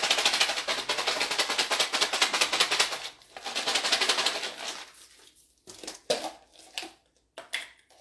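Dry roasted mixed nuts rattling hard inside a clear plastic tub that is shaken rapidly for about five seconds, with a brief break just after three seconds in. Then only a few separate clicks and knocks.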